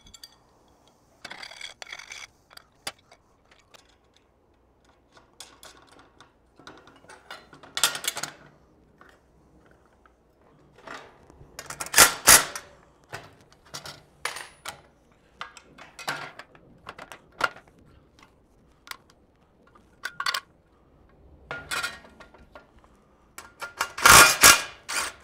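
Cordless impact driver run in short bursts, driving 6 mm screws to bolt metal fence parts together. The loudest bursts come about halfway and near the end. Between them, metal parts and hardware clink on a steel fixture table.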